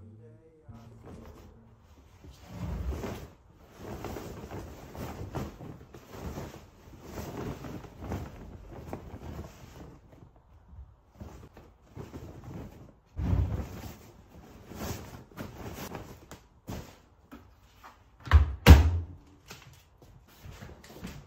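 Clothes and a paper carrier bag rustling as laundry is loaded into a Beko front-loading washing machine, with a dull thud partway through. Near the end the machine's door is pushed shut with two heavy thumps close together, the loudest sound here.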